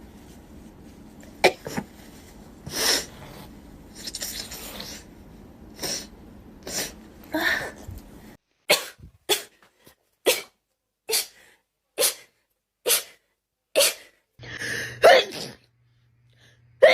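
A young woman sneezing again and again: a few scattered sneezes, then a quick run of about seven short, sharp sneezes roughly one a second, and a longer, louder sneeze near the end.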